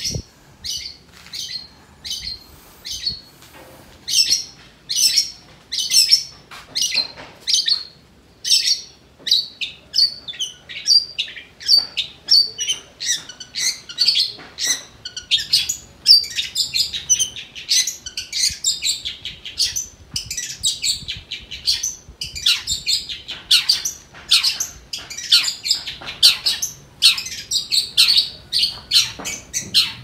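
Caged long-tailed shrike (cendet) singing: a rapid, unbroken string of short, sharp chirps and squawky notes, several a second, its song made up of mimicked calls of other birds.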